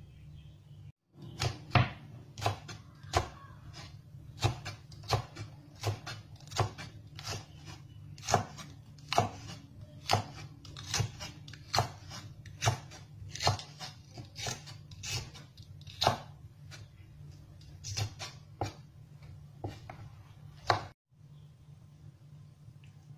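Chef's knife slicing long green chili peppers on an end-grain wooden cutting board: steady knocks of the blade through the pepper onto the wood, a little over one a second, over a faint low hum. The cutting starts about a second in and stops a couple of seconds before the end.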